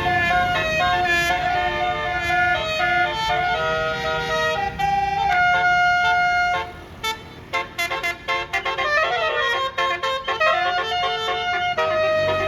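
Bus's Basuri telolet multi-tone air horn playing a melody, one note after another, loud. About seven seconds in the tune breaks into quick short toots, then a warbling run of notes.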